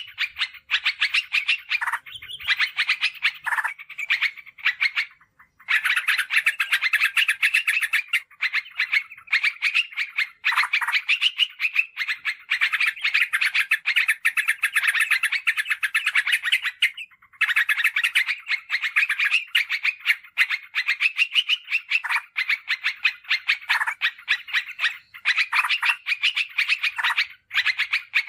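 Yellow-vented bulbul (trucukan) song: a fast, dense run of chattering notes, nearly continuous, breaking off briefly about five and a half and seventeen seconds in.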